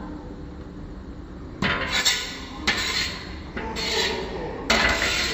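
A metal utensil stirring and scraping food around a pan during stir-frying, in four strokes of under a second each, starting about a second and a half in.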